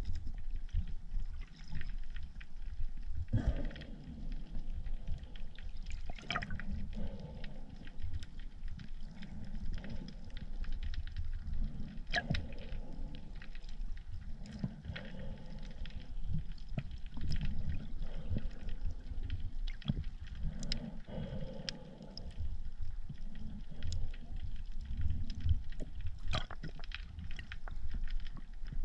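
Underwater sound of shallow rocky sea heard by a camera just below the surface: a low water rumble with swishes that swell every few seconds, and scattered clicks and crackles throughout.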